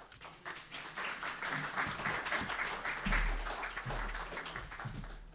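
Audience applauding, many hands clapping together, swelling over the first second and stopping abruptly near the end. A low hum comes in about three seconds in.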